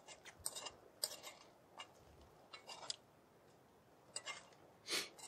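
A metal spoon scraping and clinking against a metal bowl during eating, in irregular short strokes, with the loudest and longest scrape near the end.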